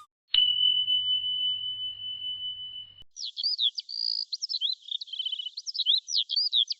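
A single high, pure tone starts with a click, holds steady while slowly fading, and cuts off abruptly after nearly three seconds. Then a songbird sings quick, varied chirps and trills.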